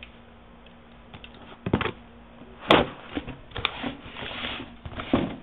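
Handling noises close to the microphone: a couple of knocks, a sharp loud click a little under three seconds in, then rustling and small clicks.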